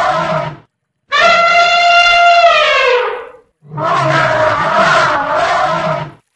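Elephant calls. A rough, harsh call cuts off just after the start. About a second in comes a clear trumpet blast of about two seconds, its pitch dropping at the end. The harsh call then comes again for about two and a half seconds.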